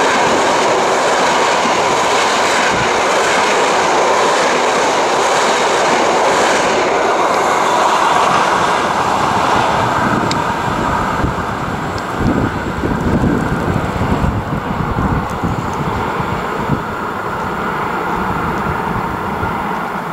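Passenger train of red coaches running past close by: the loud rolling noise of the wheels on the rails, easing off over the second half as the train moves away down the line.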